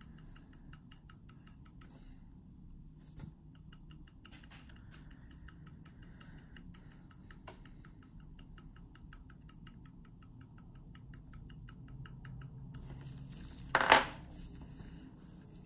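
Hand-held microblading needle tapping pigment into practice skin: a rapid, even run of fine ticks that stops about 13 seconds in. One louder knock follows near the end.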